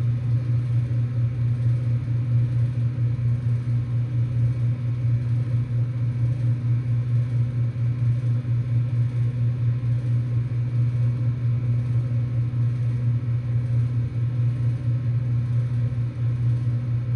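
2023 Ruud Achiever heat pump's scroll compressor running steadily in heating mode: a low, even hum.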